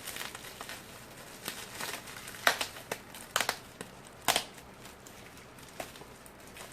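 Plastic bubble-pack mailer crinkling as it is torn open by hand, with three sharp rips in the middle.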